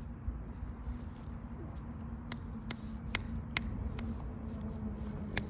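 French bulldogs making sharp clicks about twice a second from around two seconds in, over a steady low hum.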